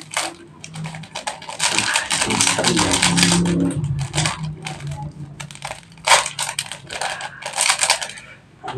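Instant-noodle seasoning sachets of plastic and foil being torn and squeezed, crinkling and crackling, loudest about two seconds in, with sharper crackles again near the end.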